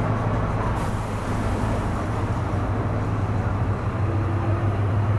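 Scania coach's diesel engine running with a steady low drone as the bus moves off, with a sudden hiss about a second in that fades away.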